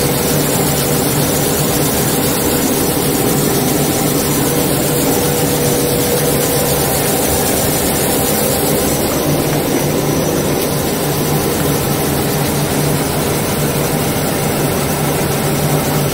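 A running BOPP tape coating machine: a loud, steady mechanical drone with a low, even hum underneath.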